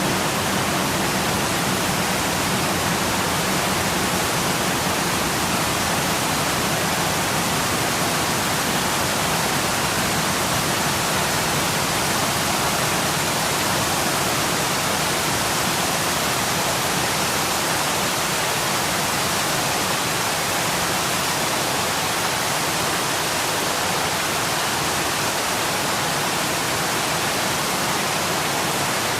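Waterfall rushing, a loud, steady hiss of falling water that does not change.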